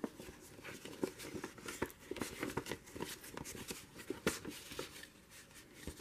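Paper rustling and scraping as a paper journaling card is slid into a sewn paper pocket on a journal page, a run of soft scratches and small clicks that thins out near the end.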